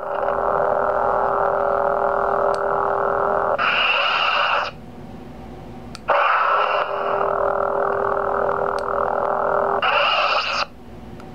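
Lightsaber sound effects from a Naigon's Electronic Creations Igniter 3 sound board through the hilt's 28 mm speaker: a steady buzzing blade hum. About four seconds in, the saber retracts and goes quiet. It ignites again with a sudden burst about two seconds later, hums, and retracts again near the end.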